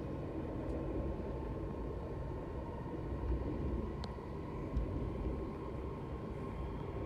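Passenger train running at speed, heard from inside the carriage: a steady rumble with a faint constant whine and a light click about four seconds in.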